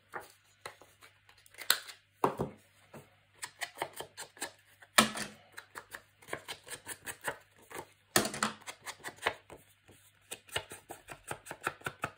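Quick runs of short scratchy strokes as a small hand crafting tool is worked against a sheet of patterned paper, broken by louder rustles of the paper being handled about two, five and eight seconds in.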